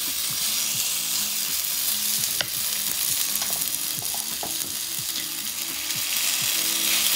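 Cabbage-heavy okonomiyaki batter sizzling steadily on an electric hot plate as more spoonfuls are added, with light scrapes of the spoon and a single click about two and a half seconds in.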